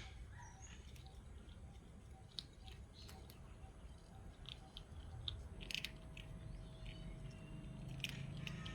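Pets chewing and crunching their food, heard as a scatter of faint, crisp little clicks over a low steady rumble.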